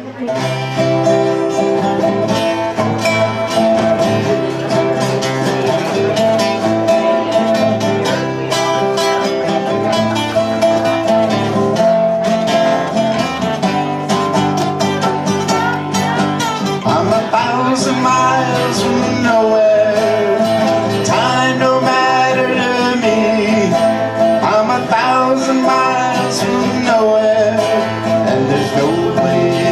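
Live acoustic music: steady strumming on an acoustic guitar with a second plucked string instrument, country or bluegrass in style. A wavering melody line rises above the chords from about halfway through.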